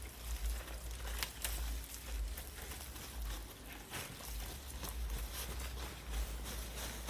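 Rustling and scattered light taps and footsteps in a field, over a low, uneven rumble on the microphone.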